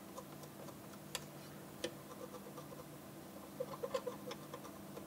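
Faint light ticks and scratches as a swab scrubs and taps over the pads of a circuit board, at uneven intervals with a small flurry a little past the middle, over a low steady hum.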